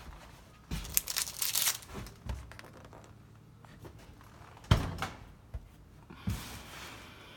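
Rustling and scraping of household items being handled for about a second, then a sharp knock and a second, softer knock.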